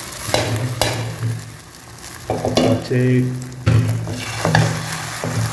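Egg and coconut omelette sizzling in hot oil in a nonstick frying pan as oil is poured in around it, with two sharp metal clinks near the start and a low hum underneath.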